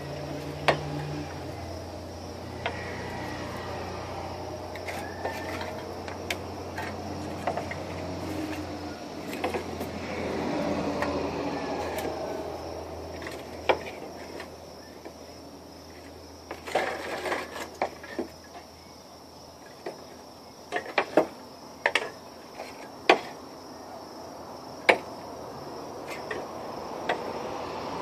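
Empty aluminium drink cans clinking and tapping against one another as they are pushed together into columns, with sharp clicks scattered throughout and a quick cluster of taps about two-thirds of the way in.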